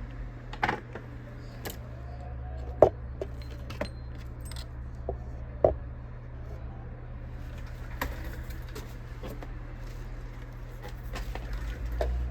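Scattered small metallic clicks and taps of hand tools being handled at an electronics repair bench, the sharpest about three seconds in, over a steady low hum.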